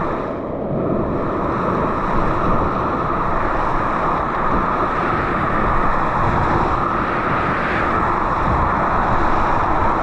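Whitewater rapids rushing and splashing around a kayak as it paddles down through the rapid, a loud, steady rush of churning water.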